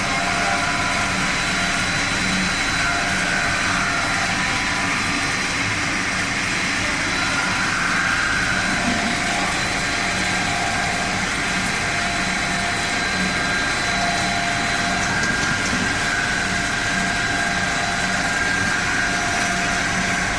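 Snack pellet production line machinery running steadily: a continuous mechanical hum with several steady high whining tones.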